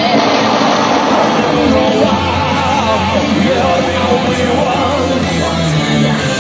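Loud recorded song with singing, played back over a PA speaker.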